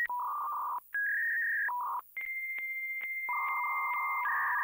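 Dial-up modem handshaking as it connects: a run of steady electronic tones that switch pitch every second or so. The longest is a high tone about two seconds long, broken by a click roughly every half second, with a lower tone joining beneath it.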